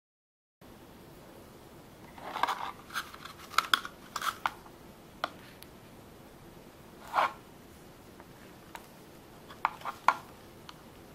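Thin clear plastic chocolate mold being flexed and handled, giving bursts of crackles and sharp clicks as set chocolate lollipops are popped out of it: a cluster of crackles a couple of seconds in, single clicks after, and another quick group near the end.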